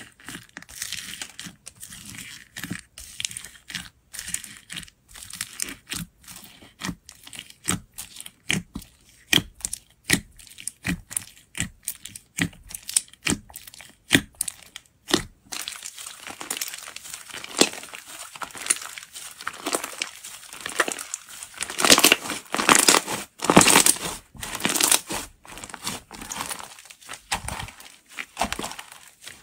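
Hands squeezing and pressing white slime packed with foam beads: a run of sharp clicks and crackles that grows denser and louder in the second half.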